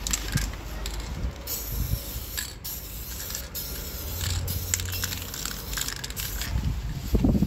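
Aerosol spray paint can hissing in stroke-length bursts as black letters are sprayed onto a wall. The hiss starts about a second and a half in and stops briefly between strokes.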